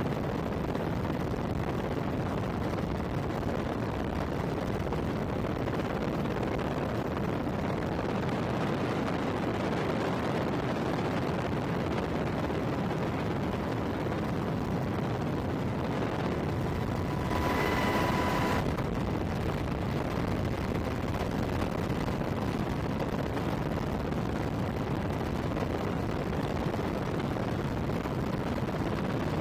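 Steady, unbroken roar of HH-60G Pave Hawk helicopter rotors and turbine engines, with a short beep about two-thirds of the way in.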